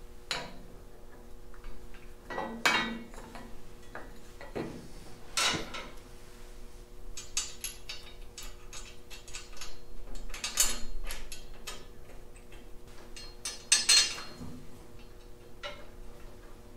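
Hand tools clicking and clinking on the metal fittings of a Farmall Super C's hydraulic pump as it is bolted back together, in irregular knocks with a few quick runs of clicks.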